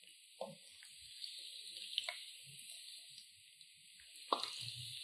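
Chicken samosas deep-frying in oil that is only moderately hot: a steady sizzling hiss with scattered small pops, the sharpest about two seconds and about four seconds in.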